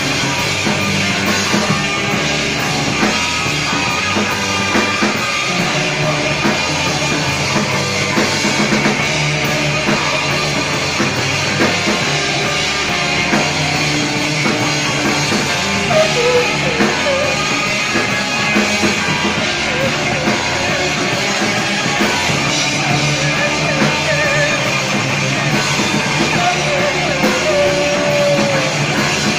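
Rock band playing live and loud, with drum kit and amplified instruments at a steady high volume throughout.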